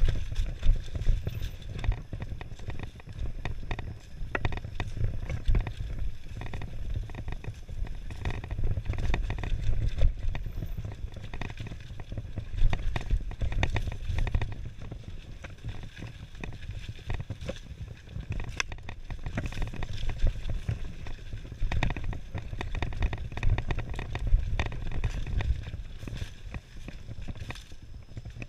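Mountain bike ridden fast over a dirt forest singletrack: a steady low rumble of wind and trail vibration on the camera, broken by frequent knocks and rattles as the bike goes over bumps.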